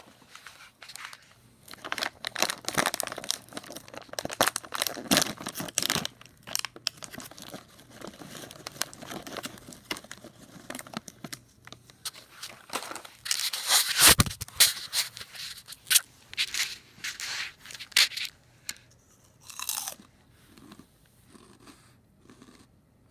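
Someone crunching and chewing crunchy cheese-flavoured ring snacks, in irregular bites, loudest about two-thirds of the way through.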